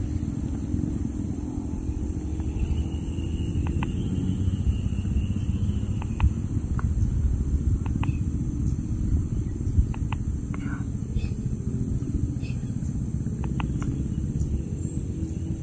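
Outdoor ambience: a steady low rumble on the microphone with a continuous high insect drone, crickets or cicadas, and a few faint scattered clicks.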